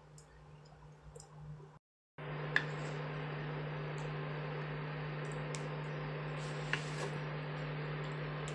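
A pan of thickened sauce with pork and broccoli simmering with faint ticking pops. After a brief dropout comes a steadier, louder humming rush with two sharp clinks of a utensil against a plate as the dish is served, the first louder.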